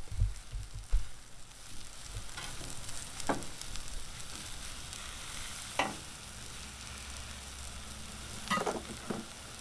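Mushrooms, onion and zucchini sizzling steadily in butter on a Blackstone 22-inch steel griddle, with a few sharp knife strikes on the griddle top as the mushrooms are sliced.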